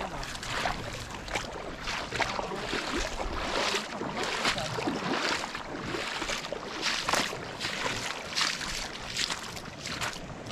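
Footsteps splashing through shallow water over a stony stream bed, about a step a second.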